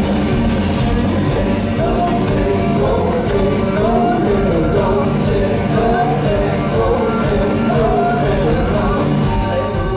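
Live alt-country band playing loud, with drums keeping a steady beat, guitars and bass under a male lead singer, heard from among the audience in a club.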